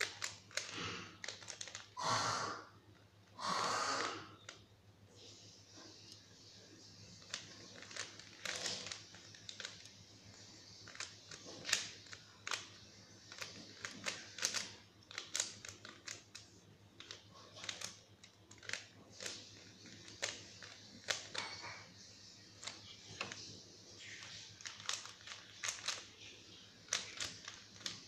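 3x3 Rubik's cube being turned by hand: its plastic layers click and clack in quick, irregular runs. Two louder, longer bursts of noise come about two and four seconds in.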